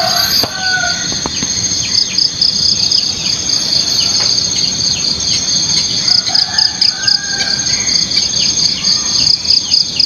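An insect's steady, rapidly pulsing high trill over many short bird chirps, with a distant rooster crowing faintly just at the start and again about six seconds in.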